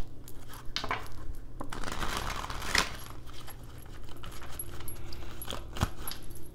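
Deck of tarot cards being shuffled and handled by hand: a string of small clicks and flicks, densest about two to three seconds in.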